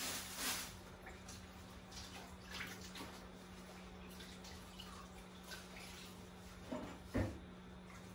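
Meat stewing in a lidded stainless saucepan over a low gas flame, bubbling softly, over a steady low hum. A brief soft thump about seven seconds in.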